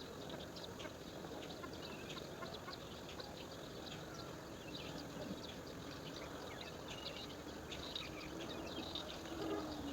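Small birds chirping in many quick, short notes over a steady outdoor hiss, with a brief low hum near the end.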